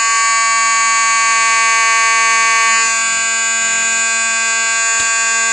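ADT 3403 T-bar fire alarm horn (the ADT version of the Simplex T-bar) sounding continuously in one loud, steady tone. It is strong enough to shake the floor.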